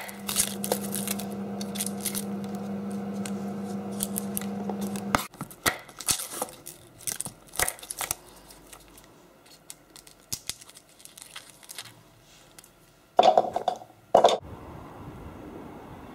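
Garlic cloves being chopped and peeled with a knife on a wooden chopping board: scattered taps of the blade and papery crackle of the skins, over a steady hum that stops about five seconds in. Near the end, a brief loud burst of noise.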